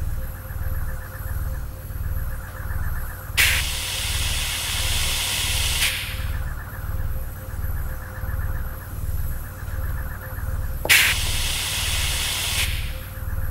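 Two sudden bursts of hissing gas jetting from a nozzle, each lasting about two seconds and about seven seconds apart. Beneath them runs a low machine throb, pulsing about once a second, with a faint steady hum.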